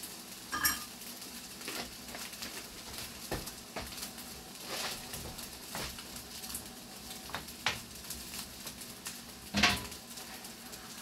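Green beans frying in a pan, sizzling steadily, with scattered clinks and scrapes of a utensil against the pan. The loudest knock comes near the end.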